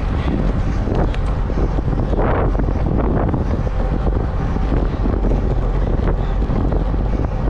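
Wind buffeting the microphone of a camera on a road bike moving at about 45 km/h: a loud, steady rumble.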